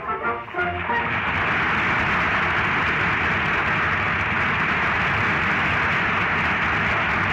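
Studio audience applauding, a steady even clatter of many hands, as the last notes of the orchestra and singers die away about a second in.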